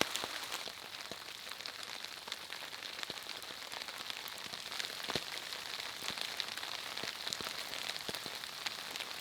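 Steady rain falling, a constant hiss with many individual drops ticking sharply close by.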